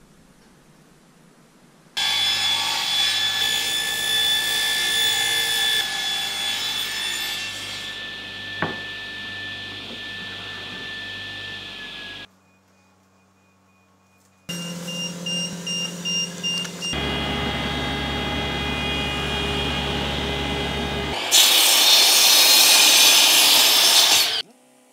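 Power saws cutting wood. First a table saw runs with a steady whine as a board is cut, and the whine fades away. After a pause, an AEG mitre saw runs and cuts through a plywood board, and the cut is loudest near the end.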